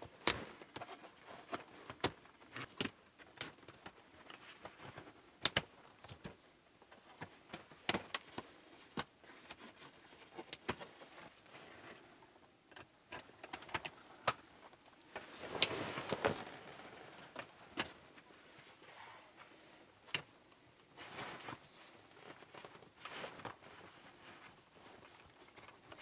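Canvas dome swag being put up: a run of sharp clicks and knocks from its metal hoop poles and frame, and rustling of the canvas, with a louder burst of fabric rustling a little past halfway.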